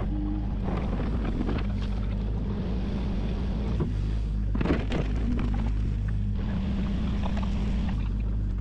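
Case CX-series compact excavator's diesel engine running steadily under load as the bucket digs and lifts soil, with a brief clatter a little under five seconds in.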